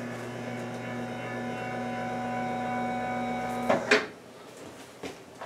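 A small electric motor hums steadily, then stops a little before the end with two sharp knocks.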